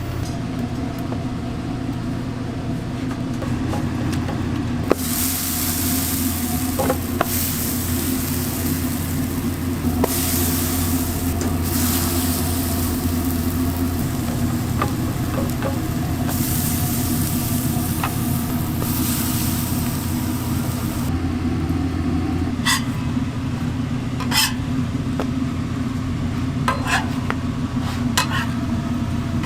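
Food sizzling as it fries, the hiss swelling and fading in stretches, over a steady low hum. A few sharp clicks of utensils come near the end.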